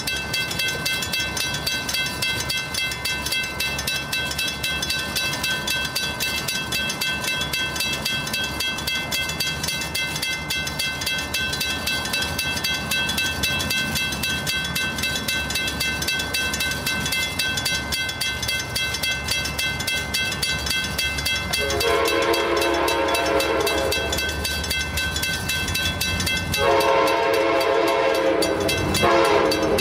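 Railroad crossing bell ringing rapidly and steadily at the crossing. About 22 seconds in, an approaching Amtrak train sounds its horn, a multi-tone chord in long blasts: one of about two and a half seconds, a second starting about 27 seconds in, and a third beginning just before the end, as its warning for the grade crossing.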